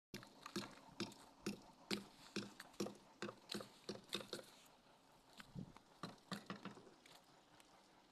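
A regular run of sharp knocks, about two a second, that thins out and grows fainter after about four and a half seconds.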